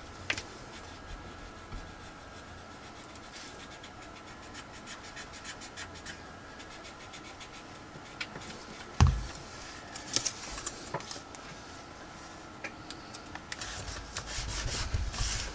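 Paper being handled, rubbed and scratched as hands work cut-out paper ephemera, with one sharp tap on the work surface about nine seconds in and a few light clicks near the end.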